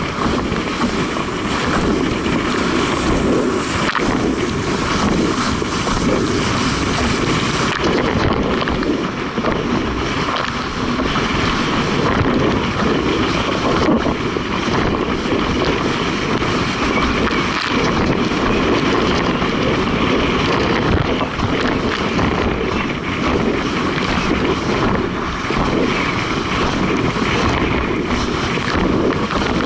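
Steady rush of wind buffeting a rig-mounted camera's microphone, mixed with water hissing past a windsurf board planing at speed.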